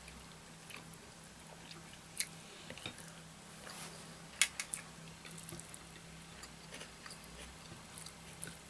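Close-miked chewing of soft curry and rice, with moist mouth clicks and smacks. A few sharper clicks come about halfway through.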